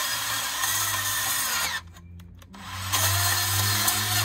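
Ridgid 18V cordless portable bandsaw, a brushed-motor model, running and cutting through a metal frame tube. It stops for under a second about two seconds in, then spins back up and cuts on, louder.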